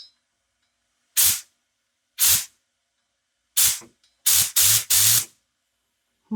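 Short blasts of compressed air from a handheld air-powered cleaning gun with a spinning nozzle, triggered six times. The first three hiss out about a second apart, and the last three come back to back.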